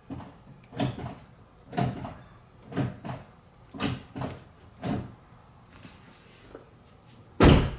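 Brake pedal of a 2013 Kia Optima being pumped by hand, a knock on each stroke at about one a second. This pushes the compressed front caliper pistons back out against the new pads so the pedal firms up. Near the end comes a single much louder thump.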